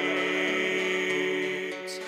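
Music: a man singing a gospel song to his own acoustic guitar, a long held note and chord that slowly fade toward the end.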